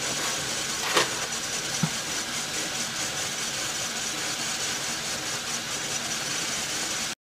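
Logan metal lathe running while a turning tool takes a facing cut across the side of a new 76-tooth change gear: a steady machining noise, with two sharp clicks about a second in and just before two seconds. The sound stops abruptly near the end.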